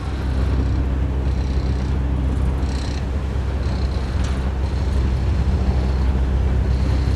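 Passenger boat's engine running with a steady low drone under a constant rush of wind and water noise.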